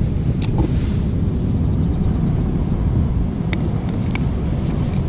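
Steady wind rumbling on the microphone over the sound of surf on a rocky shore, with a few faint small clicks.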